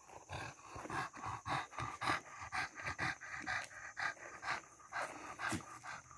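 A pug panting rapidly close to the microphone, about three quick breaths a second.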